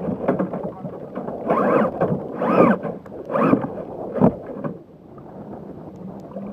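Choppy sea water slapping and splashing against a plastic sit-on-top fishing kayak's hull in several loud rushes, with a sharp knock on the boat about four seconds in, then quieter steady wind and water.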